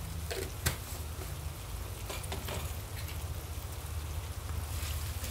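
Spiced gulai broth simmering in a wok, a fine steady bubbling like light rain, over a steady low hum. There is one sharp click under a second in, and a few fainter ones later.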